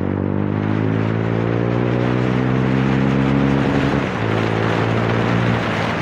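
TVS Raider 125 motorcycle's single-cylinder engine running under way through an aftermarket exhaust, holding a steady pitch, then dipping briefly and picking up again about four seconds in and dropping once more near the end. Wind noise rushes across the microphone.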